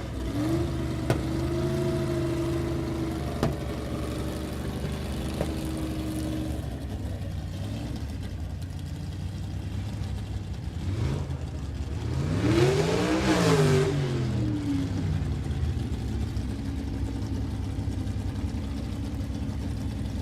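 Motorcycle engine running at a steady idle, revved up once and back down about two thirds of the way through.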